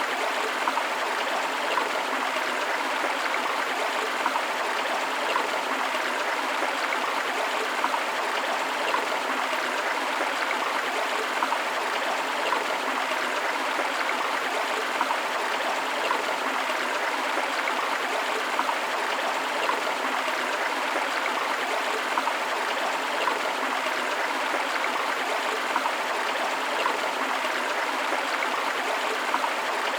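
Steady rush of a forest river flowing over rocks, with small splashes and gurgles, joined by the white noise of a waterfall.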